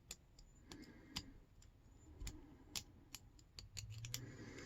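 Faint, irregular metallic clicks and ticks of a lock pick working the pins of an all-brass Yale padlock.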